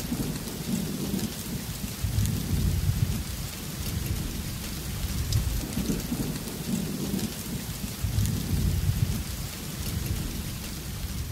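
Rain falling steadily on a wet wooden boardwalk and puddles, with fine drop ticks over the hiss. Underneath runs a low rumble that swells and fades every couple of seconds.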